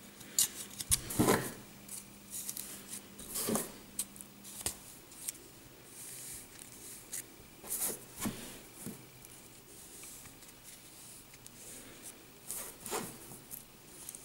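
Kinetic sand being scooped and packed by hand into a small plastic castle-tower mould: irregular scrapes, rustles and light knocks of plastic and sand, the loudest cluster about a second in and another near the end.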